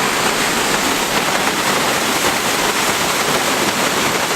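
Steady, unbroken rushing of a waterfall, a loud even hiss of falling water.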